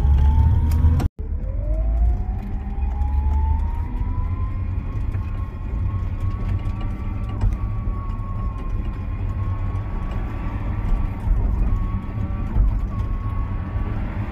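Electric drive motor of a Q-Runner enclosed mobility scooter, whining as it picks up speed. The pitch climbs after a short break about a second in, then holds steady, dipping briefly twice later on. A low rumble runs underneath.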